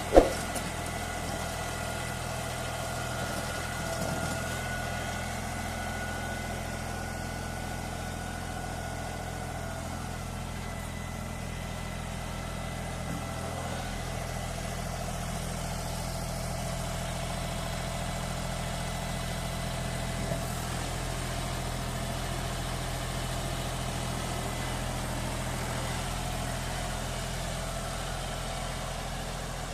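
A John Deere 5310 tractor's diesel engine idling steadily. One sharp, loud knock with a brief ring comes at the very start.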